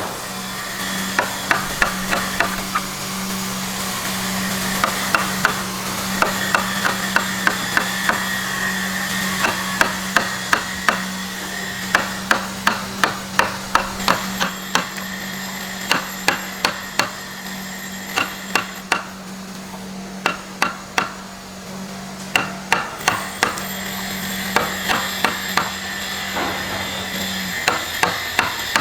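Repeated hammer blows in runs of a few strikes a second, with short pauses between runs, in woodworking. Under them runs a steady low hum that stops near the end.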